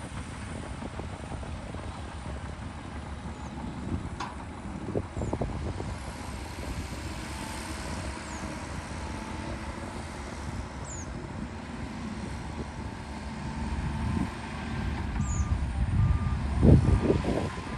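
Heavy diesel earthmoving machinery running with a steady low rumble and scattered clanks, a reversing alarm beeping a few times near the end, and the machine noise growing louder in the last few seconds.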